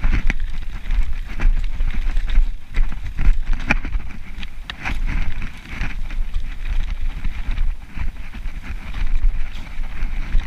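Mountain bike ridden along a dirt forest singletrack: tyres rolling over dirt and roots, with irregular clicks and rattles from the bike, and wind buffeting the bike-mounted camera's microphone as a low rumble.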